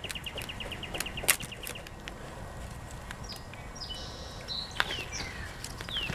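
Dawn birdsong from several wild songbirds: a rapid even trill over the first two seconds and downward-slurred calls near the end. A few sharp clicks cut through, the loudest a little over a second in, over a low steady rumble.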